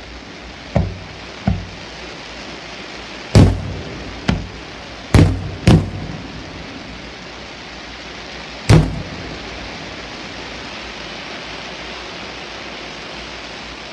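Aerial firework shells bursting: seven bangs in the first nine seconds, the loudest about three and a half, five and nine seconds in, each trailing a short echo. A steady hiss continues between and after them.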